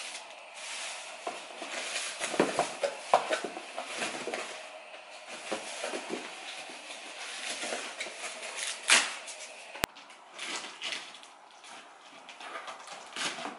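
Plastic bags rustling and cardboard boxes being handled during unpacking, with irregular knocks and clatters.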